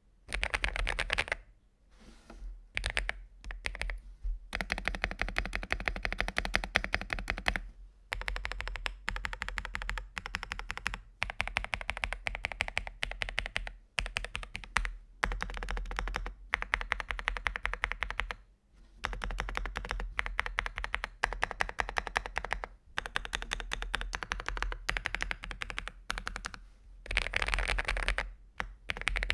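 Aula F81 gasket-mounted mechanical keyboard with polycarbonate keycaps being typed on: fast runs of keystroke clicks broken by short pauses.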